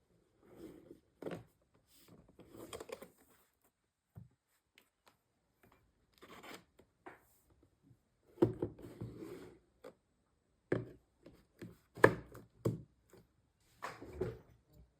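Hands handling PC parts and packaging: irregular rustling and scraping with short knocks and clicks. The knocks are sharper in the second half, and the loudest comes about twelve seconds in.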